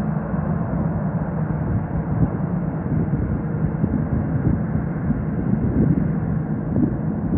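Jet engines of a twin-engine airliner running as it taxis on the runway: a steady low rumble.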